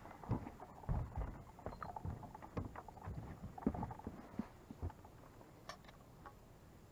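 Scattered knocks, taps and rustles of an angler moving about an aluminum boat deck and handling a rod and reel, busiest in the first half and thinning out toward the end.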